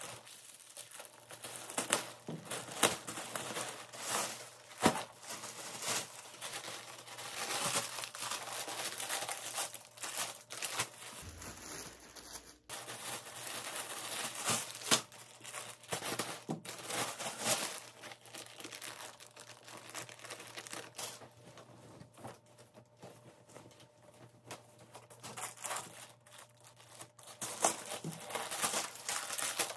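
Packaging being handled, crinkling and tearing in a long run of irregular sharp rustles.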